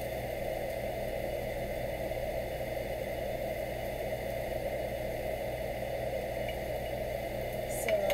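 A steady mechanical whir with a low hum underneath, unchanging throughout, with no separate knocks or clicks.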